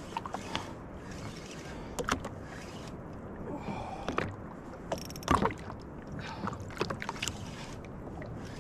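Steady low wash of calm water around a jet ski, broken by a few sharp clicks and knocks from the spinning rod and reel as a hooked fish is fought; a short rapid run of ticks and the loudest knock come about five seconds in.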